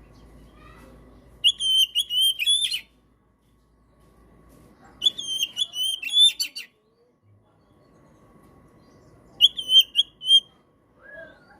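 Oriental magpie-robin singing: three short phrases of clear, whistled notes, each a quick run of repeated notes, a few seconds apart.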